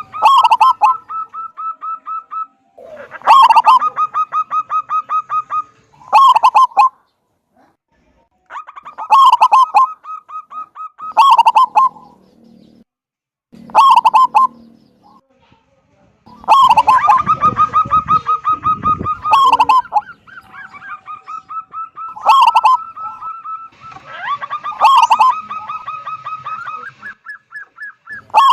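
Zebra dove (perkutut) calling over and over: a string of loud cooing phrases, each a rapid run of pulsed notes, with short pauses between them.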